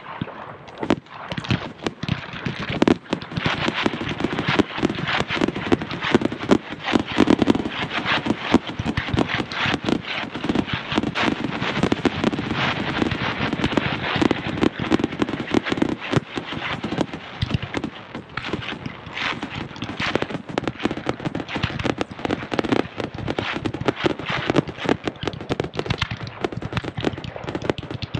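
Aerial fireworks display: a dense, rapid string of bangs, pops and crackles from bursting shells and ground-fired effects, with no pause.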